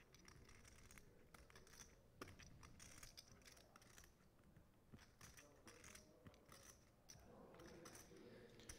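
Faint, irregular clicking of clay poker chips being handled and riffled at the table, close to near silence.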